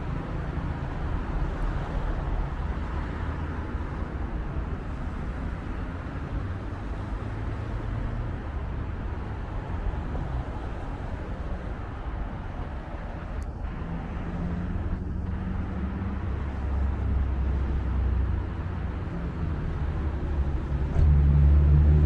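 City road traffic: cars running by in a steady low hum. A louder vehicle engine passes near the end.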